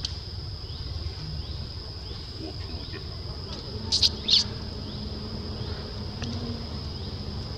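Steady high-pitched drone of forest insects, with a low rumble underneath. About four seconds in, two short, sharp, high chirps come close together and are louder than the drone.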